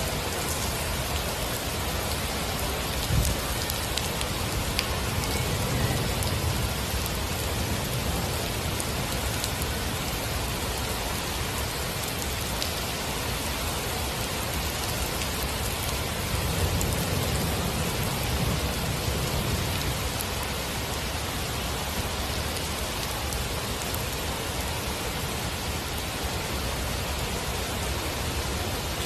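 Heavy rain falling steadily: a dense, even hiss of rain hitting the ground, with a deeper rumble swelling twice.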